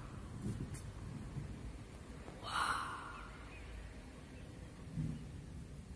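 A person's breath, a short sigh or exhale close to the phone microphone about two and a half seconds in, over a steady low rumble.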